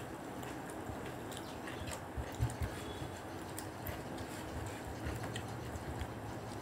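Eating sounds: chewing, and fingers working rice and curry on a plate, with light clicks and soft knocks, two of them louder about two and a half seconds in.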